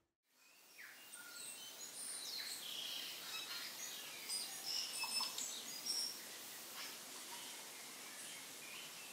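Birds chirping, many short scattered calls, over a steady outdoor hiss that fades in just after the start.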